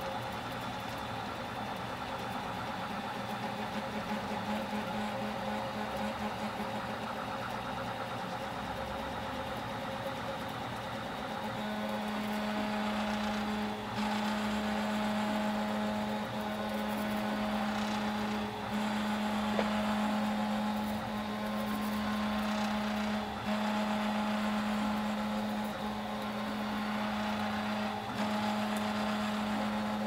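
Stepper motors of a Hypercube Evolution CoreXY 3D printer, running on steel shafts and linear bearings and driven by genuine Allegro A4988 drivers at reduced current, hum and whine in shifting tones as the print head moves. About twelve seconds in, the sound settles into a steady low hum that breaks off briefly every two seconds or so.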